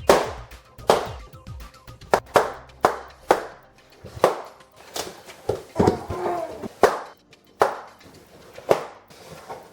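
Balloons popping one after another: about a dozen sharp pops, spaced roughly half a second to a second apart, a few coming in quick pairs.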